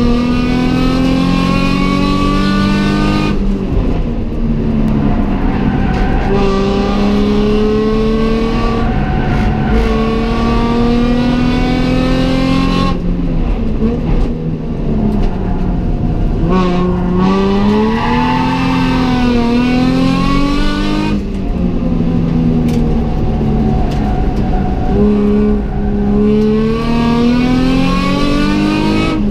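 Nissan Fairlady Z33's V6 heard from inside the cabin, pulling hard through the revs on a circuit lap. Three times the pitch climbs steadily and then drops sharply as the driver lifts off for a corner, with the revs rising and falling unevenly through the middle.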